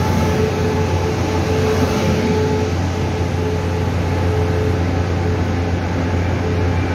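Taiwan Railway E1000-series push-pull Tze-Chiang express cars rolling past along a station platform: a steady rumble of wheels on rail with a steady hum.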